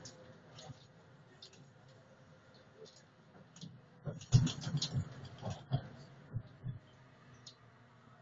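A short run of irregular knocks and clicks, starting about four seconds in and lasting two to three seconds, over a faint steady low hum inside a tram's cab.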